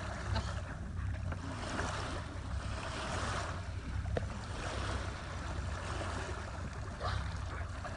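Water washing and swishing along a sailboat's hull, swelling and easing every second or two over a low steady rumble.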